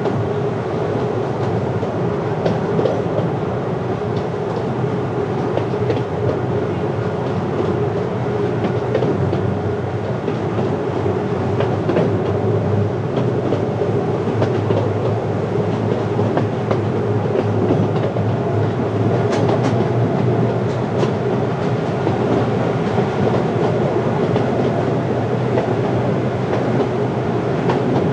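Zilker Eagle miniature train running along its track: a steady rumble of wheels and drive with a constant mid-pitched hum, and a few sharp clicks of the wheels over rail joints about two-thirds of the way through.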